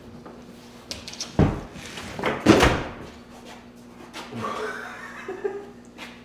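Thuds and knocks of a person climbing down off a car raised on a lift, with two loud thuds about a second and a half and two and a half seconds in. A brief voice sound follows about four seconds in.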